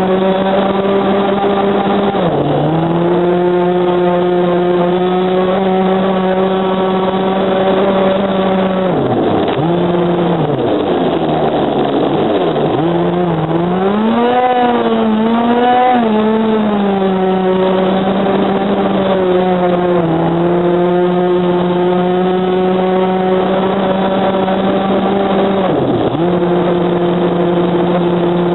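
A 26 cc two-stroke petrol engine of an RC boat running at high revs, heard from on board. Its pitch dips briefly and recovers about two seconds in, again later and near the end, and it drops and wavers up and down for several seconds around the middle.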